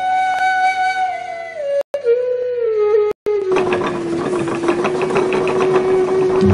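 Background music: a flute holding long notes that slide downward in pitch, cutting out briefly twice. From about halfway a dense, rapidly pulsing rattling texture comes in under a steady held note.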